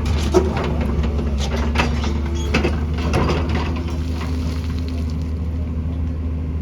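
Excavator's diesel engine running steadily under load, with a run of knocks, clanks and short squeals from the machine at work during the first four seconds or so.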